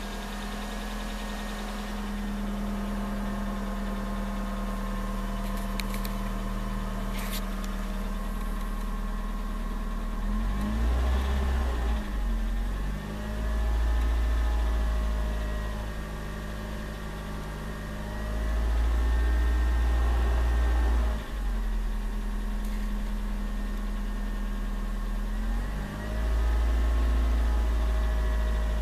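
Suzuki Swift Sport engine idling, its revs raised and held for a few seconds and then let drop, several times over. The owner reports a rattling (katakata) noise at cold idle that goes away at about 2000 rpm and once the engine is warm.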